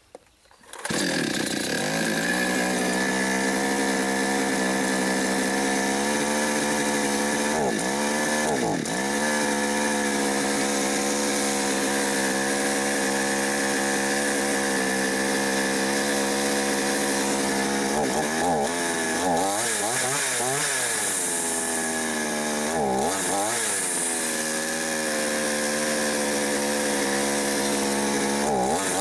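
Mil Germany two-stroke chainsaw starting up about a second in and then idling steadily while its carburettor is adjusted. The engine speed dips and rises briefly several times past the middle.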